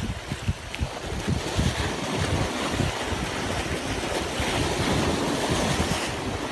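Sea waves washing and breaking against the boulders of a rocky shore, with a fuller surge of white water near the end. Wind buffets the microphone throughout.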